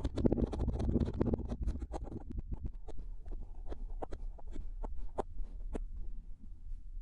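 Kinetic sand crunching and crumbling as it is handled: a dense grainy crackle for about two seconds, then thinning to scattered small crackles and clicks.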